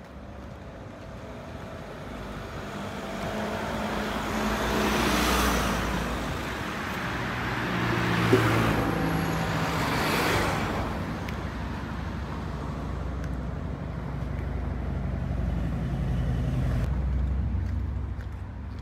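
Cars driving past on a street: the rush of passing traffic swells to peaks about five and ten seconds in, while a low engine hum runs on and fades near the end. A single sharp click comes about eight seconds in.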